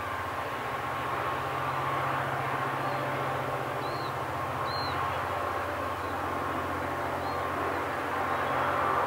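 Queensland Rail 2300 class diesel-electric locomotives with Roots-blown EMD two-stroke engines, running steadily under load as they haul a heavy train up a steep grade. A deep engine drone with a steady higher whine, growing slightly louder near the end.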